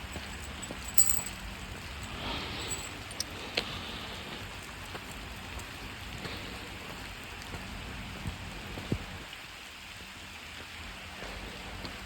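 Steady rain falling, an even hiss with scattered drips ticking on surfaces; the sharpest tick comes about a second in.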